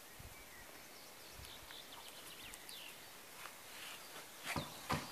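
Quiet outdoor ambience on a lawn with a few faint high chirps, then several sharp knocks and clicks close to the microphone near the end.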